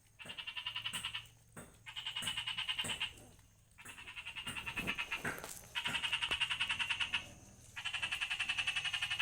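A frog calling in a series of rapid pulsed trills, each lasting a second or so, about five in all with short pauses between them.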